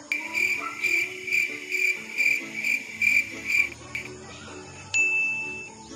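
A high electronic beep repeating about twice a second for several seconds, then stopping, with faint background music underneath; a single longer beep comes about five seconds in.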